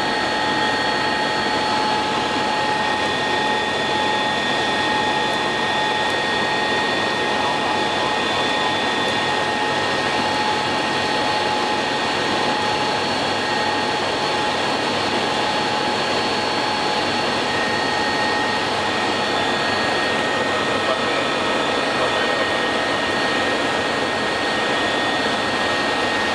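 Helicopter cockpit noise in flight, climbing after take-off: an even rush of noise with several steady, high whining tones held level.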